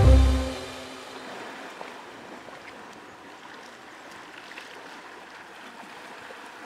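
Sea water washing and lapping against the rocks below, a steady gentle wash. A low closing note of music fades out over the first second.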